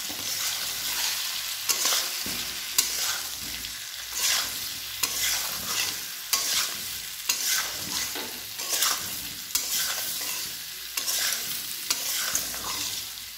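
A metal spatula stirring and scraping pumpkin and potato chunks around a metal kadai in repeated strokes, a little more than one a second, over a steady sizzle of frying in oil as they are sautéed with ground spices.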